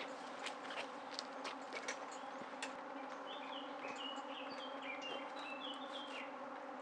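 Steady buzzing of a flying insect, a fly or bee, with scattered small ticks over it. A run of short high chirps comes in about three seconds in and stops after about six seconds.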